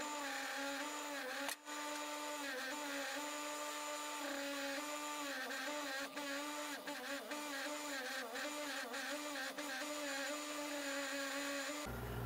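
Electric bench buffer motor running with a steady hum while a cast copper-alloy ingot is pressed against its spinning buffing wheel, the pitch wavering and dipping slightly under the load. There are a few brief dropouts in the sound.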